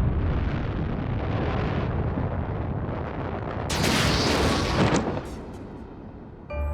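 Animated rocket launch sound effect: the rocket engine's dense rumbling rush, swelling into a louder whoosh about four seconds in and then fading away.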